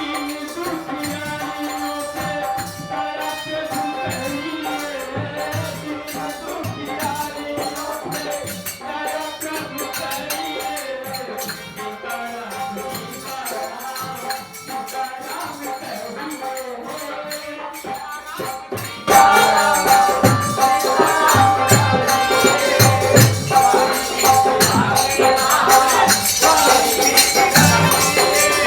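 Kirtan: devotional group music with rattling, jingling hand percussion and chanting that moves up and down in pitch. It gets much louder about 19 seconds in.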